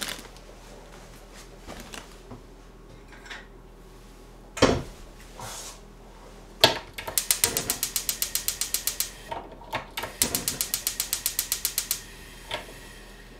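Gas hob's spark igniter clicking rapidly, about ten clicks a second, in two runs of roughly two seconds each as a burner is lit. Before that comes a single heavy thump as the stockpot is set down on the grate.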